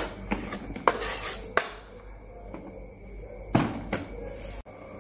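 Kitchen knife blade scraping thinly sliced shallots off a wooden cutting board into a stainless-steel mesh colander, with the slices dropping in. There are a few short scrapes and knocks in the first second and a half, then another scrape about three and a half seconds in.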